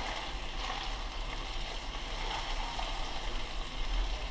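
Horse mackerel fillets and chopped garlic sizzling steadily in olive oil in a non-stick frying pan, pushed about with a wooden spatula.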